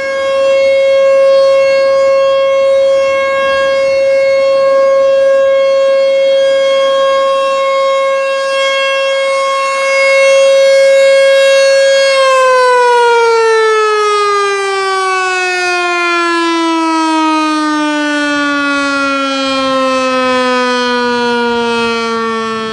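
Outdoor tornado warning siren sounding its test: a loud, steady tone that, about halfway through, begins to wind down, its pitch falling smoothly and steadily to the end.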